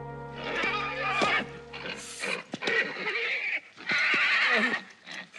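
Horse neighing and squealing in several loud bursts while rearing. A held chord of tense background music stops abruptly about two seconds in.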